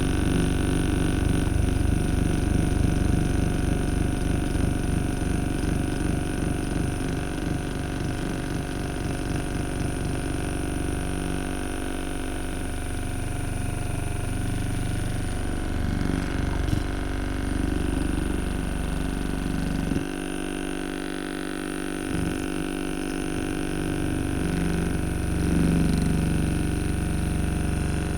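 FitIndex percussion massage gun running against a shoulder muscle: a steady motor hum with fast, even hammering of the head. The tone changes about midway and again about two-thirds of the way through.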